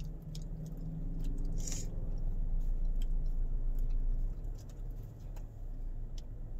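Banana being chewed: soft wet mouth sounds and small clicks, with a short hissy smack about two seconds in, over a steady low hum.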